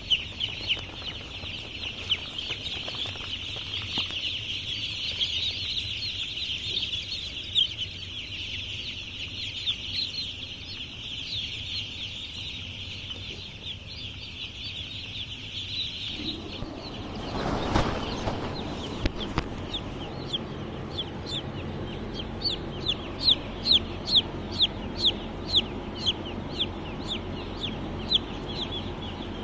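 Dense chorus of many young chicks peeping shrilly. About two thirds through, the chorus thins after a brief rustling noise, and single loud falling peeps then stand out, a few per second.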